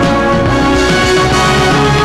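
Opening theme music of a television news programme, loud and steady with sustained held chords.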